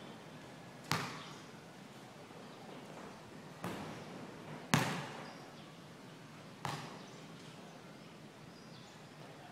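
Basketball bouncing on a concrete court, four separate bounces a second or two apart, the third the loudest, each ringing out briefly under the court's roof.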